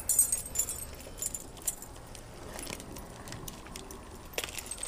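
Metal spinnerbait blades and hooks jingling and clinking inside a plastic bag as the lure is handled. A flurry of light jingles in the first second, then scattered small clicks and plastic rustles.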